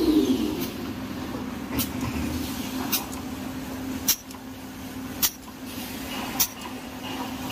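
Kitchen-towel rewinding and gluing-lamination machine running: a motor's falling whine dies away just at the start, then a steady low hum with a sharp click about once a second, keeping an even rhythm.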